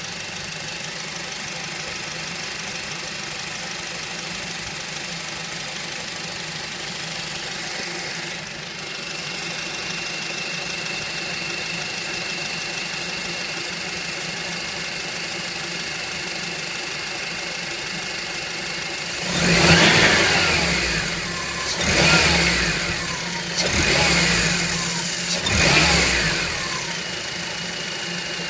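Honda Civic Type R (FN2) engine idling with a whining, rattly noise and a thin high whine joining in, then revved in four short blips in the last third.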